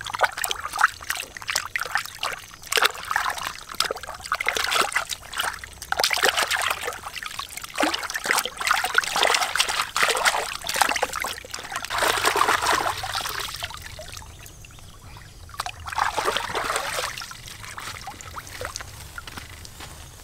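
Hands washing a large snake in shallow river water: repeated splashing and sloshing in uneven bursts as the body is rubbed and dunked, dying away near the end.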